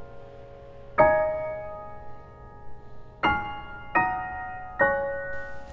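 Background piano music: slow single notes struck one at a time and left to ring and fade, four of them, a second or more apart.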